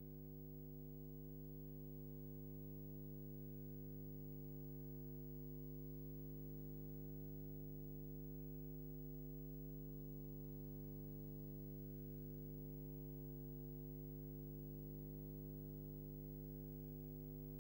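Faint, steady electrical hum: a low buzz with a stack of higher tones above it, holding perfectly even without any change.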